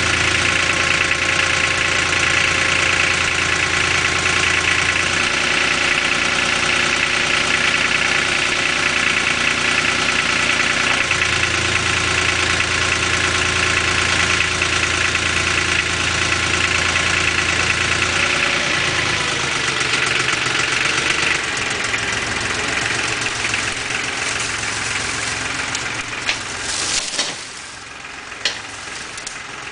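Lenar FS 254 II compact tractor's diesel engine running steadily under the work of its front loader, its note stepping up and down a few times. The engine grows quieter in the last third and then drops off sharply near the end.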